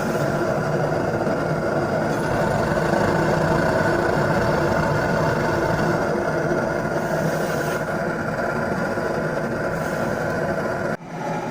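Homemade waste-oil furnace burning steadily, its burner giving a continuous hum with a hiss over it while it heats up toward its working mode. The sound drops out for an instant near the end.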